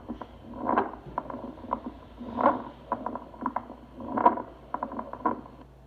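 Recorded chest sounds heard through a stethoscope: a squawk (grasnido), a short duck-like abnormal lung sound caused by sudden opening of the small lower airways and typical of bronchiolitis. It comes about every 1.7 seconds, three times, with short clicks between.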